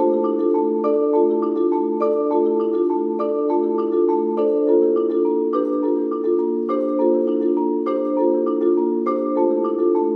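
Solo marimba playing a fast, even repeated figure in its low-middle range, with single higher notes over it that change about once a second.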